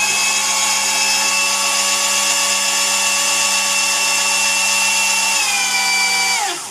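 Built-in grinder motor of a Gaggia Brera espresso machine running with no beans in it, a steady whine that sags a little in pitch about five seconds in, then winds down and stops.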